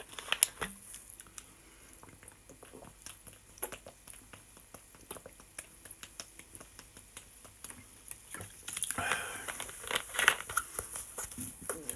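A man drinking fizzy cola from a plastic bottle: small swallowing sounds and the crinkle of the plastic, with a sharp click about half a second in as the bottle is handled and louder handling noise near the end.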